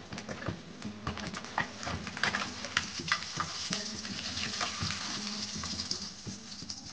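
Hot oil sizzling and crackling with many sharp pops as whole boiled eggs deep-fry in a steel karahi. A metal spatula and a wire skimmer clink and scrape against the pan as the eggs are turned and lifted out.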